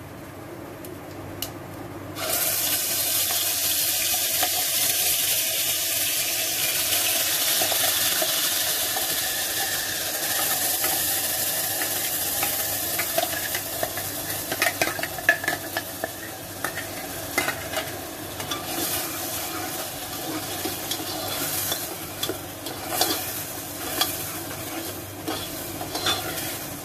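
Wet ground paste hitting hot oil and cumin seeds in a pressure cooker, setting off a sudden loud sizzle about two seconds in. The sizzle slowly dies down as a steel ladle stirs it, with clicks and scrapes of the ladle against the pot in the second half.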